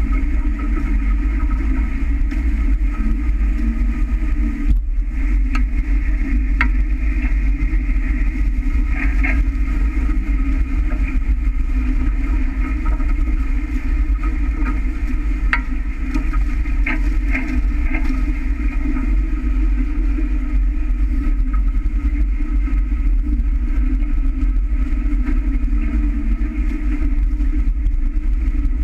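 Wind buffeting the microphone of a camera mounted on a sailing catamaran's hull: a steady low rumble with the rush of water along the hull, and a few sharp ticks in the middle.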